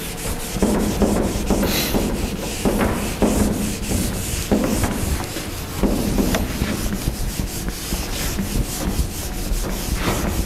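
Whiteboard eraser wiping across the board in repeated back-and-forth strokes.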